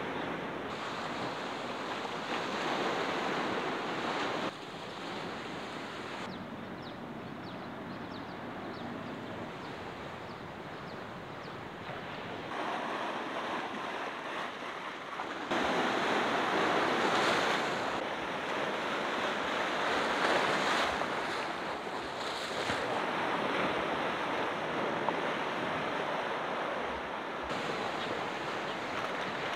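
Sea waves breaking and washing on the shore, a steady rushing surf with wind on the microphone. It gets louder about halfway through and shifts level suddenly a few times.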